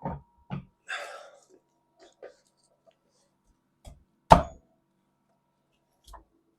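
Several separate knocks and clunks of heavy metal machine parts being handled and set against each other while the Bridgeport J-head belt housing is fitted. The sharpest, loudest knock comes a little past four seconds in, with a short rustle about a second in.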